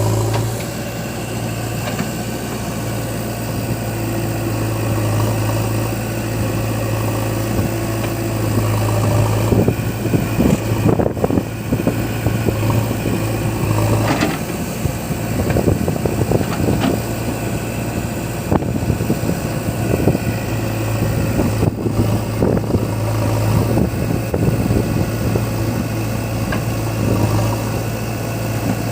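A heavy diesel engine running steadily at a low hum. From about ten seconds in, a few seconds of irregular knocks and clatter.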